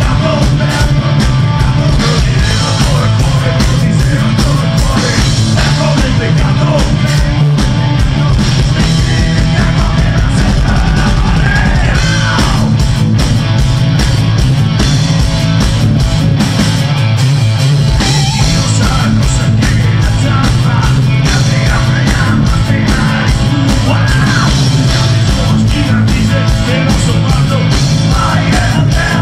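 Live rock band playing loud through the stage PA, with drum kit, electric guitar, bass guitar and congas. A man's voice sings or shouts over the band into a microphone.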